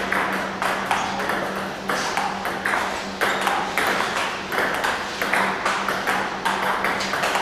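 Table tennis rally: the celluloid ball clicking in quick succession off the rubber paddles and the tabletop, about two to three hits a second, over a steady low hum.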